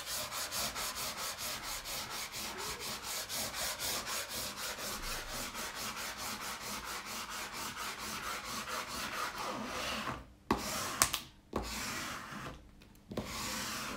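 Fast, even back-and-forth rubbing over the paper release sheet of a diamond painting canvas, pressing it back onto the adhesive, at about five strokes a second. About ten seconds in the rubbing stops and gives way to a few sharp paper crackles and handling sounds.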